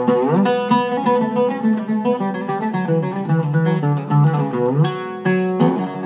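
An Iraqi-style oud with a cedar soundboard, played solo in a quick run of plucked notes. It slides up in pitch near the start and down again around four and a half seconds in, with a brief break a little after five seconds before the playing resumes.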